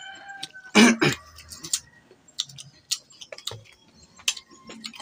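A single short cough about a second in, then scattered small clicks and smacks of mangoes being eaten by hand.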